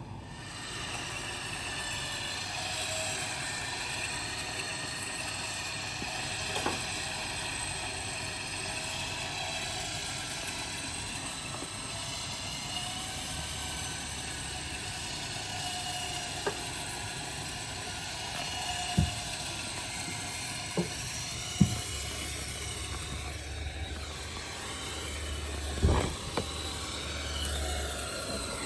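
Winch running steadily, pulling a stuck car off a tree stump, with a few short knocks and clunks from the car and rigging as it shifts.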